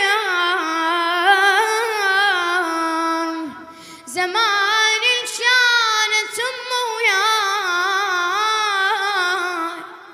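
A boy's solo voice singing an Iraqi abudhiya with long, drawn-out vowels and wavering ornaments, with no instruments. The singing breaks briefly about three and a half seconds in, then goes on.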